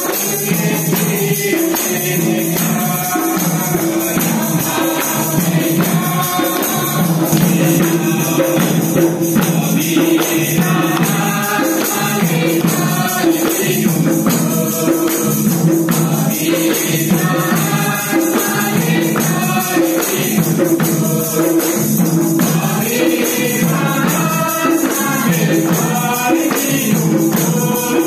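A church congregation singing a worship song together, with a tambourine keeping the rhythm.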